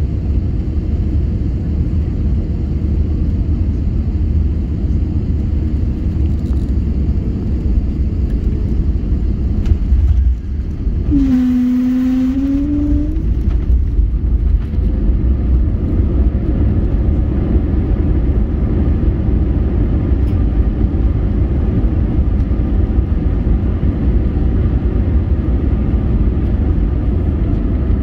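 Cabin noise of an Airbus A320neo landing: a steady deep rumble of engines, airflow and runway. About ten seconds in the main wheels touch down with a brief jolt and a short rising tone, then the rumble carries on through the rollout with the ground spoilers raised.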